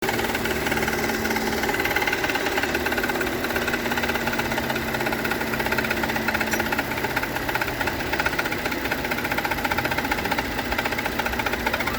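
Renault Duster engine running steadily with a fast, even clatter over it. This is the extraneous noise that appeared about 1000 km after the timing belt, drive belt and water pump were replaced; the owner says it fades once the engine warms up.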